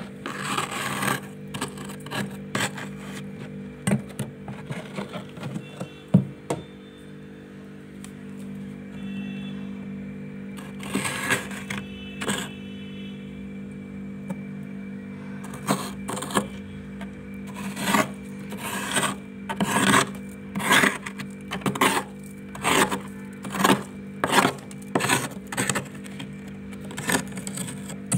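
Metal spoon scraping thick, built-up freezer frost in repeated strokes, scattered at first and then quick and regular, about two a second, in the second half, over a steady low hum.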